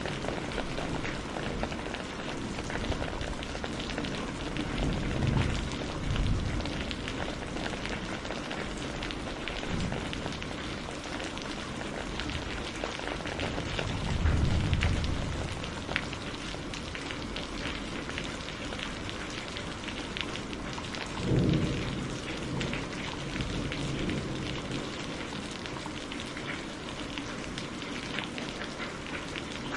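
Steady rain hissing down, with low rolls of thunder swelling up three times, about 5, 14 and 21 seconds in.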